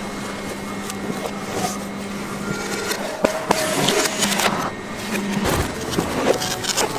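A motor-driven machine running with a steady low hum, with scattered sharp knocks and clatter. The hum breaks off about five and a half seconds in with a low thump.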